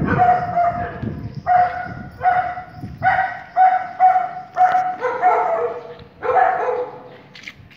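A dog barking over and over, about a dozen short barks half a second to a second apart, fading out near the end.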